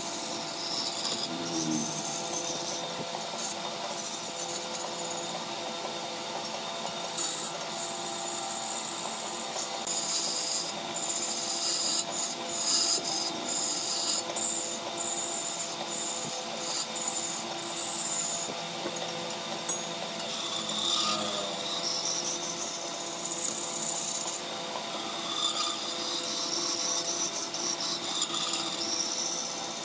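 A hand-held turning tool scraping the surface of a large wooden blank spinning on a wood lathe: a continuous rasping scrape over the lathe's steady hum.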